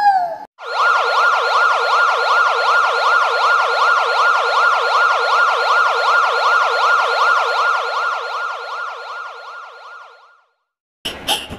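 Ambulance siren sound effect in a fast yelp, rising and falling about four times a second. It fades out and stops about ten seconds in.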